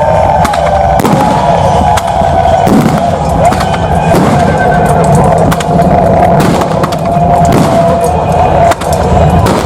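Battle-scene soundtrack of an outdoor light-and-sound show played over loudspeakers: held, sustained music with many sharp cracks and bangs of staged combat throughout.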